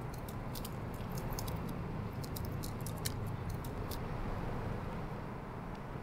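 Dry leaf litter and twigs crackling in a quick run of small sharp clicks as a pied currawong fledgling shuffles and turns on the ground, thinning out about four seconds in. A steady low hum runs underneath.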